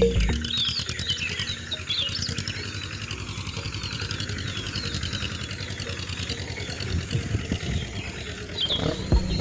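A small engine running steadily with a rapid chug, as of a mini tractor.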